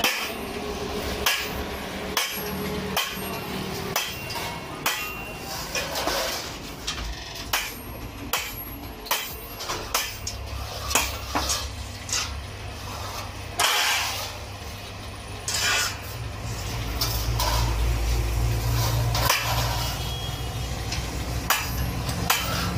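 Irregular hammer blows on metal, some ringing, at an uneven pace. A low steady rumble comes in around the middle and is strongest about two-thirds of the way through.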